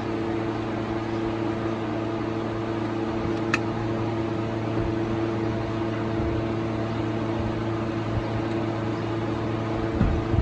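Toyota Premio's 1ZZ-FE four-cylinder engine running steadily at idle, with a single sharp click about three and a half seconds in.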